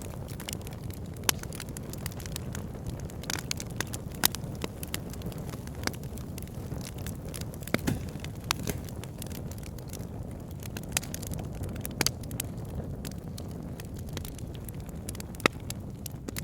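Fireplace fire crackling: a steady low rumble of flames with frequent irregular pops and snaps, a few of them sharper and louder.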